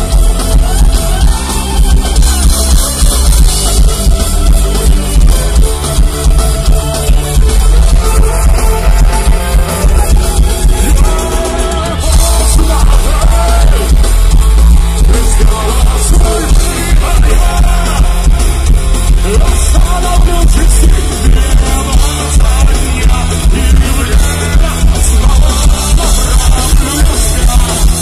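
Rock band playing live and loud through a festival PA: electric guitars, bass and drum kit in a dense, continuous wall of sound.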